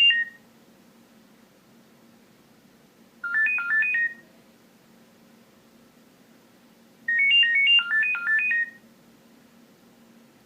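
Nokia 6230i mobile phone ringtone playing phrases of quick high-pitched beeping notes that step up and down, separated by pauses of a few seconds: a short phrase about 3 seconds in and a longer one about 7 seconds in.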